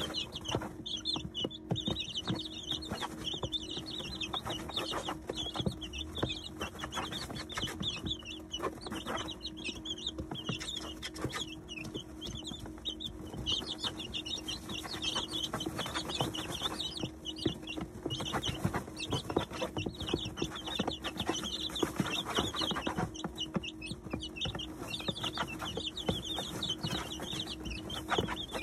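A brood of 19-day-old chicks peeping constantly, high and overlapping, while they peck at grain in a plastic feeder and scratch through the bedding with many quick clicks. A steady low hum runs underneath.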